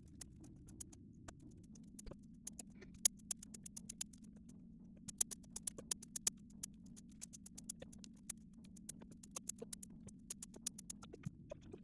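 Dried pinto beans dropping one or a few at a time into a metal ammo can: sharp, irregular little clicks, in quick runs now and then, over a steady low hum.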